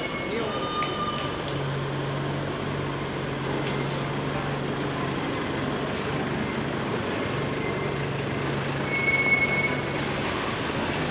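Street traffic noise: a steady low engine hum with the general rumble of passing vehicles, and a short high-pitched beep about nine seconds in.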